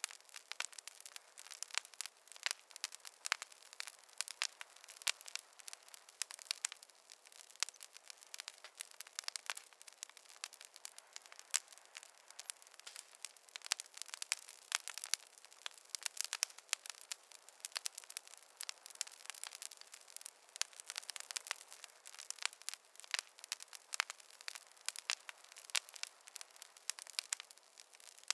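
Campfire crackling: a dense, irregular run of sharp pops and snaps, many each second, with no low rumble underneath.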